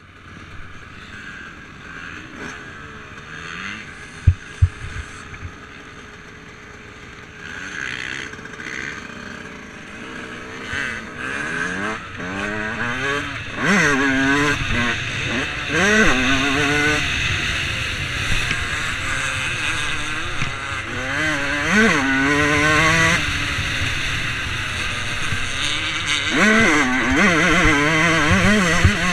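Dirt bike engine running on a motocross track. It is quieter at low speed at first, with two sharp knocks about four seconds in. From about twelve seconds it revs hard, the pitch repeatedly rising and dropping back as it shifts up through the gears.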